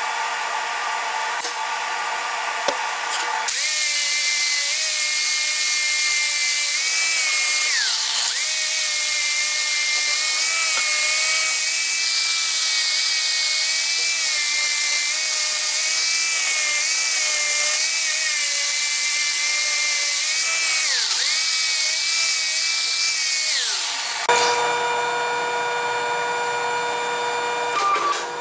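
Angle grinder running for about twenty seconds, a loud high whine whose pitch sags briefly a few times as it is pressed into the work, then cuts off. A quieter steady machine hum is there before it starts and after it stops.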